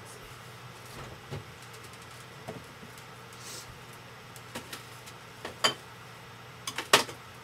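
Items knocking and clattering against refrigerator shelves as things are put away, with a few scattered knocks and two louder clacks near the end, over a steady low hum.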